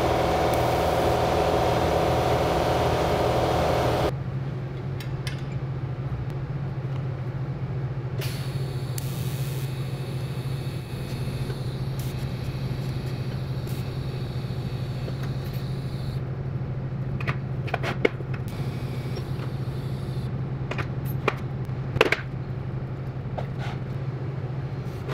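A grinder running on metal stops abruptly about four seconds in. A TIG welding arc then hisses for several seconds over a steady hum. Near the end come a few sharp metal clicks and clinks as parts are fitted together.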